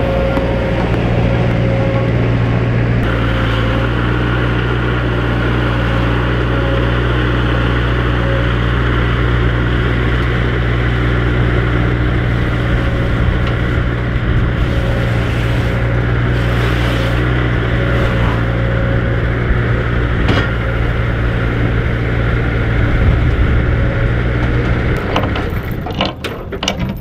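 Heavy-equipment engine running steadily under load; it breaks off about 25 seconds in, giving way to a few clicks and knocks.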